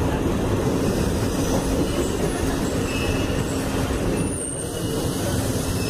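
Passenger train running along the track, heard from an open carriage door: a steady rumble of wheels on rail, with a few brief faint high squeals.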